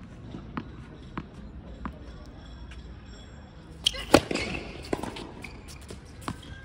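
Tennis ball bounced on a hard court several times, about every half second, ahead of a serve, then the racket strikes the serve about four seconds in, the loudest sound. Fainter ball bounces and strikes follow as the rally starts.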